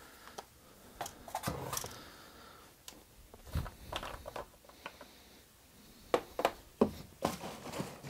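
Handling noise from a plastic-bodied chainsaw on a workbench: scattered clicks, scrapes and knocks of hands and parts against the housing and bench, with a couple of duller thuds and a quick run of sharp knocks near the end.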